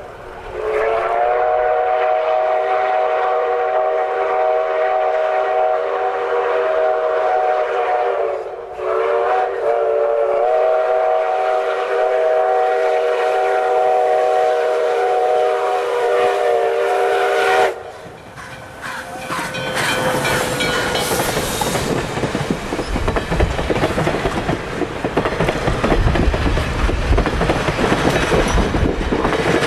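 Canadian National #3254 steam locomotive blowing its whistle, a chord of several notes held in two long blasts of about eight seconds each. The engine and its passenger coaches then pass close by, with a loud rumble of wheels on the rails that builds through the rest.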